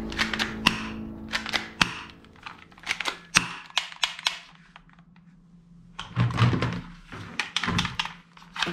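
Hard plastic toy pistols clicking and clattering as they are handled. Runs of sharp clicks in the first half are followed by heavier knocks and rattles as guns are lifted from and set back onto a pile of other toy guns.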